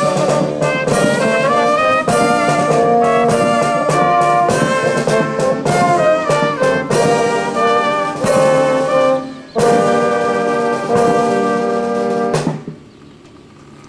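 Brass music: trumpets and trombones playing loud held chords that change every second or so. It breaks off briefly about nine and a half seconds in, then stops abruptly near the end.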